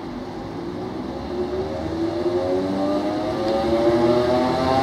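Class 315 electric multiple unit approaching, its thyristor-controlled traction motors whining in several tones that rise steadily in pitch as it gathers speed, over the rumble of wheels on the track. It grows louder as the train nears.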